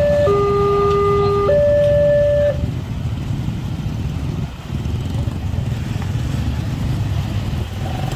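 Railway level-crossing warning alarm: an electronic two-tone sound alternating low and high, each tone about a second long, which stops about two and a half seconds in as the crossing clears. After that come the steady sounds of motorcycles and a car moving over the crossing.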